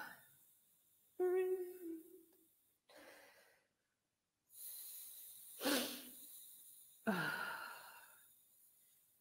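Human voices making wordless vocal sounds: a held pitched tone about a second in, breathy exhalations, then two sudden cries near the end whose pitch falls away as they fade.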